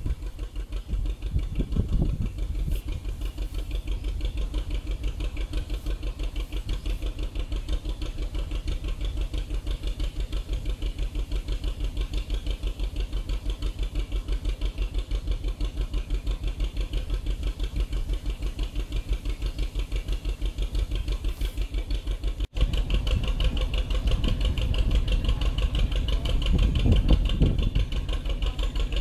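Narrow boat's diesel engine running steadily under way, with an even, rapid low beat. About two-thirds through it breaks off for an instant and carries on a little louder.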